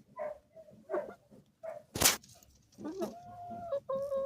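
Chickens clucking in short calls, then a few longer, drawn-out calls near the end. A brief sharp noise about two seconds in.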